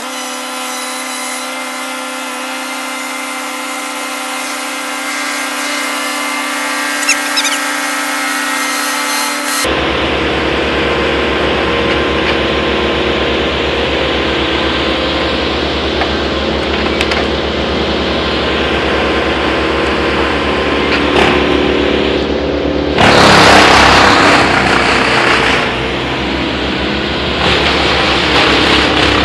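Brush chipper and a compact loader's engine running together. A steady, whining machine drone changes abruptly about ten seconds in to a rougher engine sound with a low, even pulse. A louder burst of grinding comes near the end, typical of wood feeding through the chipper.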